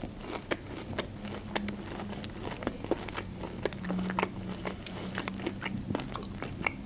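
Close-miked chewing of crisp, breaded fried food, with many short crunchy clicks and wet mouth sounds.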